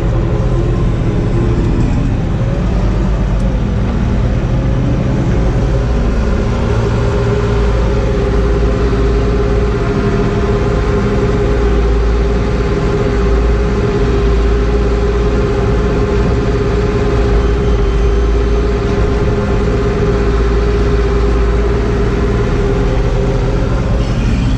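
Telehandler's diesel engine running steadily under load, heard from inside the cab, with a steady whine coming in about a quarter of the way through and holding until near the end.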